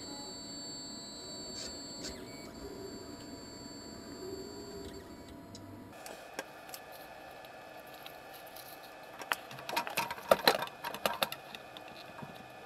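Steady faint high whine over a low hum, then from about six seconds a different steady hum. Near the end comes a quick run of hard clicks and knocks as a plastic filament spool is handled and fitted onto the 3D printer's spool holder.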